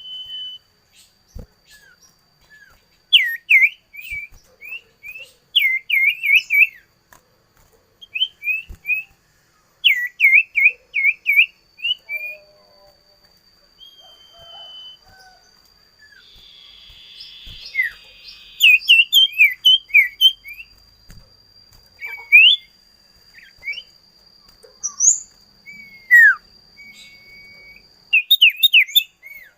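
A songbird singing: bursts of quick, sharp whistled notes repeated four to six times at a time, with pauses of a second or two between phrases.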